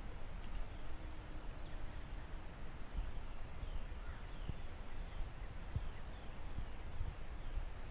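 Wind rumbling on the microphone, with faint bird calls: a run of short falling notes in the middle.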